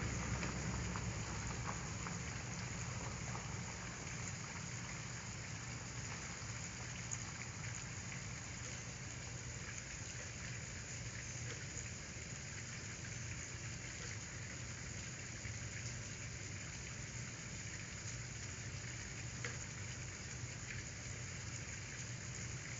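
Steady hissing background noise with a low hum beneath it and a few faint ticks.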